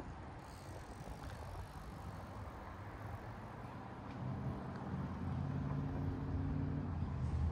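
Low engine hum that grows steadily louder from about halfway through, over faint outdoor background noise.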